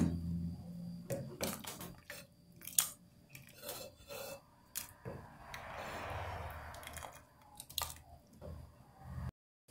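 Silicone spatula stirring thick bean stew in an aluminium pressure cooker: scattered light knocks and scrapes against the pot, with a softer wet stirring sound in the middle.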